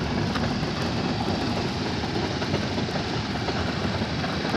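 A Toyota Corolla station wagon's engine running steadily at fairly high revs, its drive wheel turning a homemade clay blender that churns lumpy clay and water into slurry.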